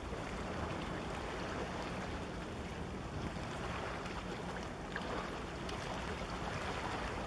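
Steady wind noise on the microphone over the wash of harbour water against the shore.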